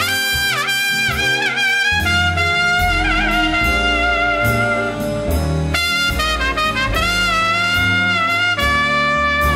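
Small swing big band playing an instrumental passage: the brass and saxophone section plays held notes, with pitch slides in the opening couple of seconds, over a walking bass line and a steady cymbal beat.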